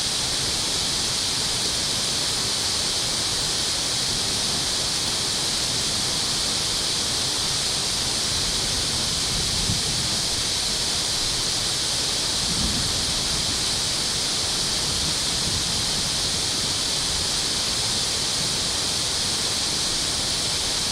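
Steady rushing of water through a dam outlet, with two small low thumps about ten and thirteen seconds in.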